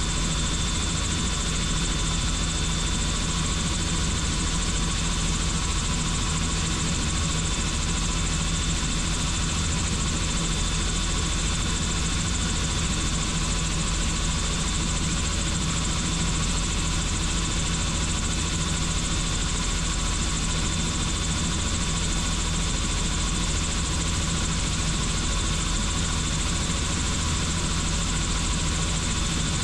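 Helicopter in flight: the main rotor and turbine engine running steadily, with a constant high whine over the low drone.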